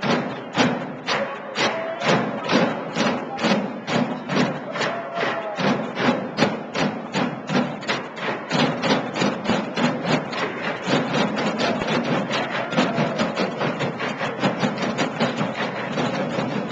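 A group drum circle beating on upturned square plastic containers with drumsticks and hands, a steady beat of many overlapping strikes. The strokes come about three a second at first and grow denser and busier in the second half.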